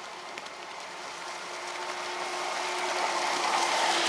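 Streamline RC Thrasher jet boat running at speed with water spray, getting louder as it comes close near the end.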